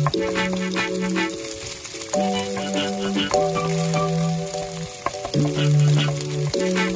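Eggs sizzling in hot oil in a stone-coated wok while a wooden spatula stirs and scrapes them, with many small clicks over the hiss. Soft background music of held notes changes every second or two underneath.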